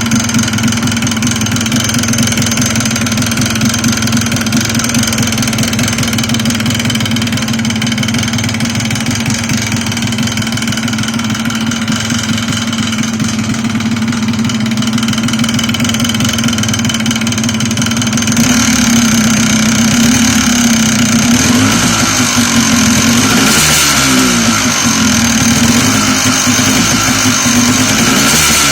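Yamaha Blaster's single-cylinder two-stroke engine idling with an extraneous knock in the motor. About two-thirds of the way through the engine speed rises slightly, then wavers up and down.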